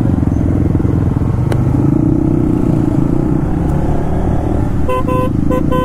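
Motorcycle engine running steadily under way. Near the end, a vehicle horn gives three short beeps.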